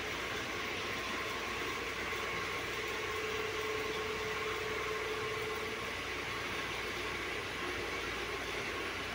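Steady background hum and hiss with a faint held tone that grows a little stronger midway.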